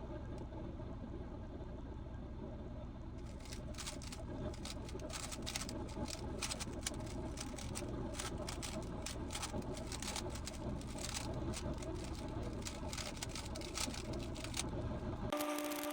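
Quick, irregular clicking and clacking of a GAN 15 speedcube's layers being turned, starting about three seconds in. A short electronic tone sounds near the end.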